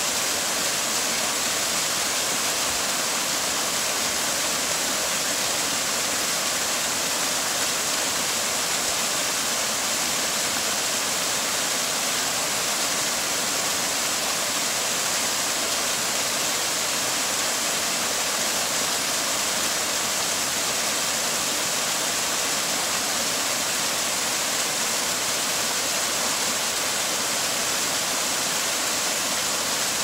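Small woodland waterfall: water cascading over rocks in a steady, unbroken rush, strong in the hiss range.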